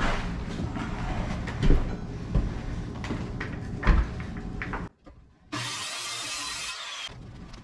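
A power saw running as it cuts into rotten, waterlogged floor, with a few sharp knocks; it cuts off abruptly about five seconds in, followed by a short burst of hiss.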